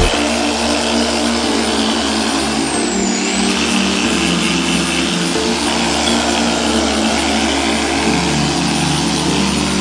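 Corded electric polisher running against a car's painted bumper, a steady motor hum with a high whine that dips briefly in pitch about three seconds in as the pad is pressed harder.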